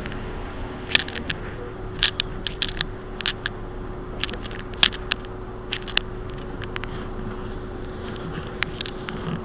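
Mercedes-Benz Citaro C2 city bus standing with its engine idling: a steady low rumble with a steady hum. Irregular sharp clicks sound over it, most of them between about one and six seconds in.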